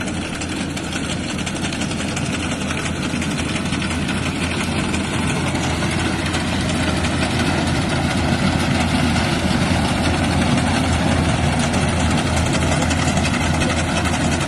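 Compact combine harvester running steadily as it cuts and threshes dry corn, a dense engine and machinery drone that grows a little louder about halfway through.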